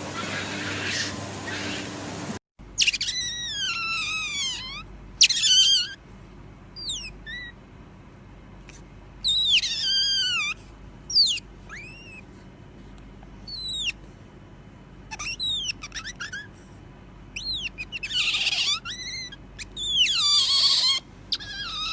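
Otter calling: a series of high, downward-sliding chirps and squeaks, some single and some in quick clusters. They follow about two seconds of steady hiss with a low hum that cuts off abruptly.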